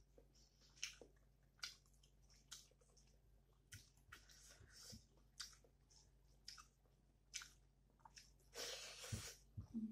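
Faint close-up mouth sounds of a person eating rice and curry with the fingers: soft, wet chewing and smacking clicks spaced about a second apart, with a longer, louder noisy sound near the end as the next handful goes into the mouth.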